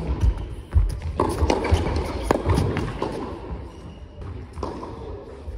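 Tennis being played on an indoor court: sharp racket-on-ball strikes, ball bounces and shoe scuffs on the court surface, echoing in a large hall.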